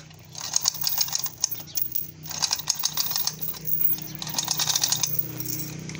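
Manual chain hoist (chain pulley block) being worked under load on a taut chain: runs of rapid metallic clicking and chain rattle, each about a second long, repeating about every two seconds, over a low steady hum.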